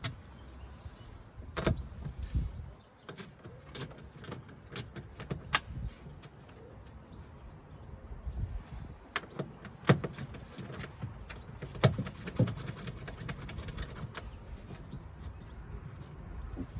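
Irregular clicks and knocks of tools and parts being handled against a Land Rover Freelander 2's stripped rear door, with a few sharper knocks spread through.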